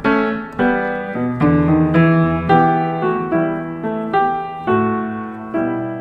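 Piano music: a new note or chord struck about every three-quarters of a second, each ringing and fading before the next.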